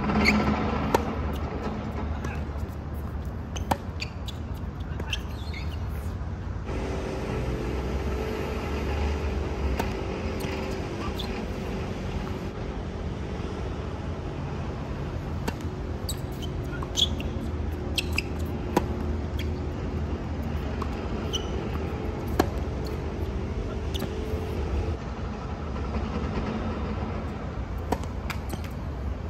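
Tennis balls struck by racquets and bouncing on a hard court during play: sharp pops at irregular intervals, sometimes a second or so apart, over a steady low rumble of traffic.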